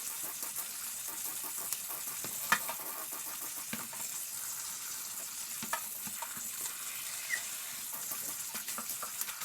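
Cooked spaghetti draining through a sieve: a soft, steady hiss of water with a few light clicks and one sharper knock about two and a half seconds in.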